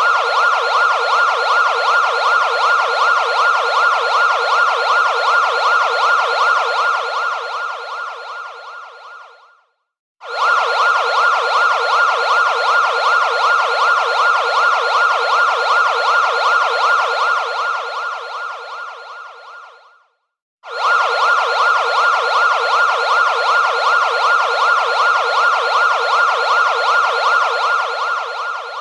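Emergency-vehicle siren sound effect with a rapid up-and-down warble, played three times over. The first two passes fade out and stop, each followed by a brief gap; the third begins fading near the end.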